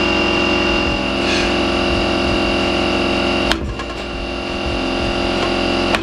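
Pneumatic air hammer chattering in a fast, steady buzz against a steel rivet in a truck frame crossmember, working to drive it out. It cuts off about three and a half seconds in with a sharp metallic knock, and another sharp knock comes near the end.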